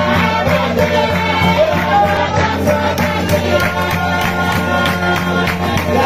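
A group singing a John Frum song together over a steady rhythmic beat and instrumental accompaniment.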